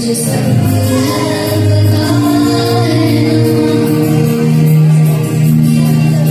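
A boy singing into a microphone over musical accompaniment, holding long notes.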